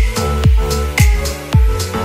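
Electronic background music with a steady beat, about two beats a second.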